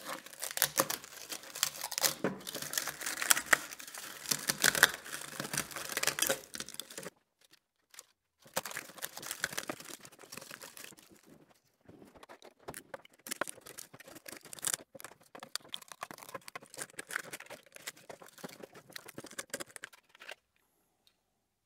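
3D-printed plastic support material being snapped and torn off a printed part by gloved hands: dense crackling and snapping, with a short pause about seven seconds in, stopping shortly before the end.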